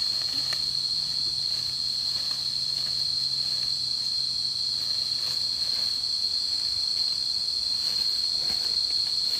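Insects buzzing steadily at a high pitch, with a few faint rustles of dry leaf litter.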